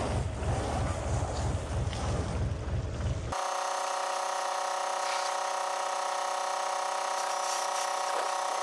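Water from a garden hose spraying against the metal tank and fan housing of an airblast orchard sprayer. About three seconds in the sound changes abruptly to a steady, even hum of several tones.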